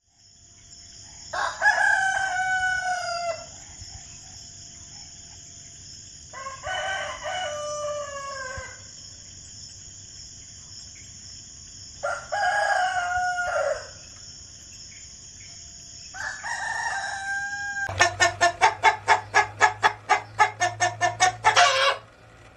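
Roosters crowing: four separate crows about two seconds long, each dropping in pitch at the end, over a steady high hiss. About eighteen seconds in, a fast run of short calls follows, about five a second, for some three seconds.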